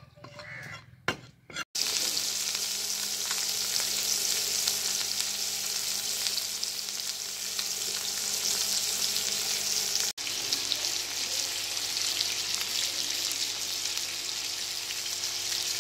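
Whole spice-coated fish shallow-frying in oil on a flat griddle, a steady sizzle that starts suddenly about two seconds in and breaks off for an instant about ten seconds in. Before it, a couple of short knocks of a knife blade on a wooden chopping block.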